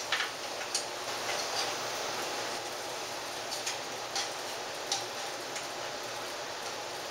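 Wing bolts being threaded up from below into a telescope tripod's accessory tray: a few faint, scattered ticks and clicks, mostly in the first five seconds, over a steady background hiss.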